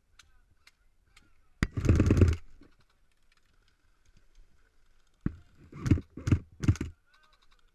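Close knocks and rubbing right at a body-worn camera's microphone: one sharp knock about one and a half seconds in, followed by a short rumbling rub, then three or four more short knocks between five and seven seconds in, each about half a second apart.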